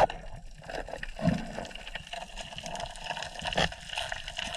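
Muffled water sounds picked up through an underwater camera housing: irregular sloshing and gurgling, with a couple of dull knocks.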